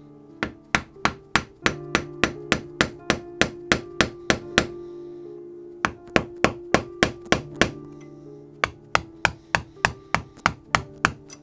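Hammer striking a steel center punch to drive the old handle out of an axe head: sharp blows at about three a second, in three runs broken by two short pauses. Background music underneath.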